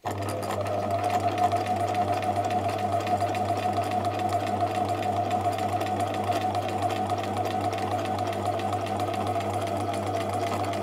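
A Bernina 1008 sewing machine starts up suddenly and stitches at a steady speed, with an even, repeating needle-and-mechanism beat, through a line on scrap fabric. The machine has just been cleaned and oiled, and the owner says it still clunks a little.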